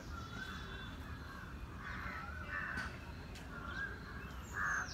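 Crow cawing, a harsh call about two and a half seconds in and a louder one near the end, among short wavering bird calls repeating every second or two, over a steady low background rumble.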